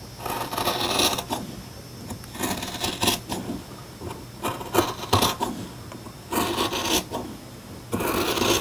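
Orange-handled scissors cutting through fabric in a straight line, in five long rasping strokes about every second and a half.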